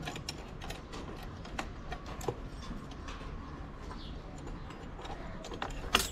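Small scattered clicks and taps of a metal bolt being handled and pushed through a tail-tidy bracket by hand, with one sharper click near the end.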